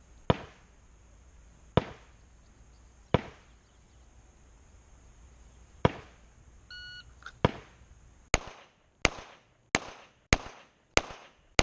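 Four single gunshots spaced a second or more apart, then a shot-timer beep about seven seconds in. A quick string of about seven pistol shots follows, roughly two-thirds of a second apart, fired at a 2-inch dot drill.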